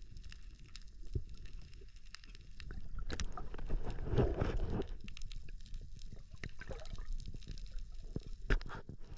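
Water sloshing and gurgling at the sea surface, heard through an underwater camera's microphone, with scattered clicks throughout and a louder rush of splashing about three to five seconds in as the spearfisher moves at the surface.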